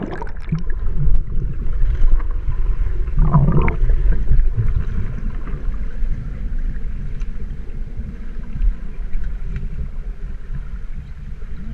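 Muffled underwater rumble of moving pool water, heard through a camera submerged in its waterproof housing. A brief louder swish comes about three and a half seconds in.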